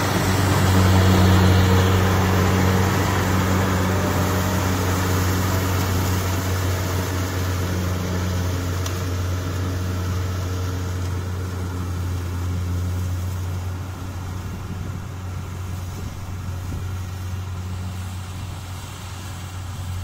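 Kubota DC70 rice combine harvester running while it cuts and threshes, a steady low engine drone that grows fainter as the machine moves away, noticeably quieter about two-thirds of the way through.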